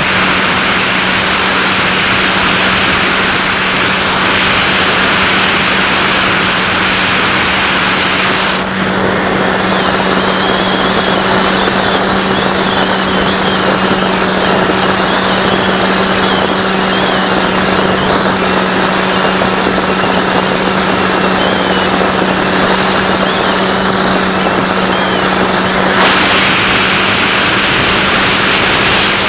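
SkyHunter RC plane's electric pusher motor and propeller running at a steady pitch, with wind rushing past the onboard camera. For most of the middle stretch the rushing turns duller and a faint wavering whistle comes in.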